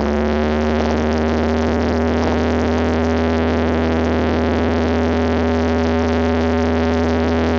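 Cessna 172's piston engine and propeller running steadily, heard from inside the cabin as a constant drone while the plane rolls on the ground after landing.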